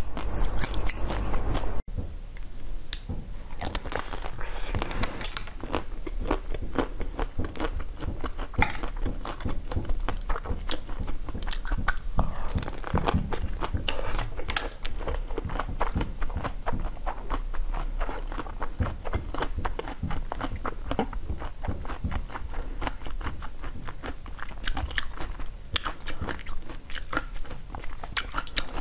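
Repeated biting and crunching of the hard blue coating of an ice cream bar on a stick, with chewing between bites: dense, irregular crackles and snaps. A different food is bitten briefly at the very start.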